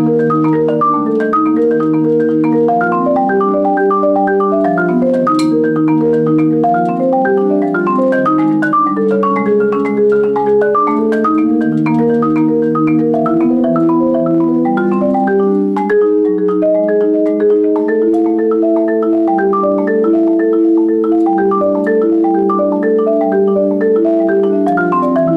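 Solo marimba played with four mallets, an unbroken flow of quickly struck, overlapping notes that ring into one another at an even loudness.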